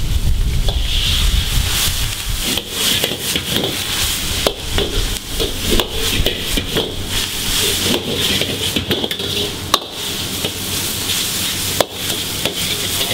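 Pad Thai noodles sizzling in a wok over a commercial wok burner, loudest at first as broth goes into the hot pan, while a metal ladle stirs and tosses them, scraping and clattering against the wok. Two sharp metal knocks ring out near the end.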